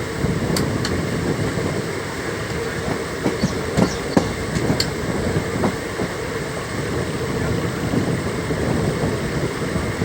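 Indian Railways express train running on the track: a steady rumble with wheels clicking over rail joints, and a cluster of sharp knocks around the middle.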